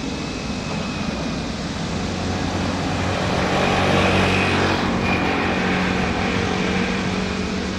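Jet airliner's engines passing by: a rushing roar that swells to its loudest about four seconds in, with a high whine and a steady low hum running through it.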